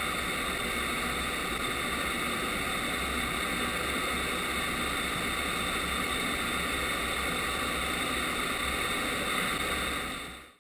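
Steady rushing air noise inside an Airbus A330-200's cockpit in flight, with a few faint steady tones through it. It fades out near the end.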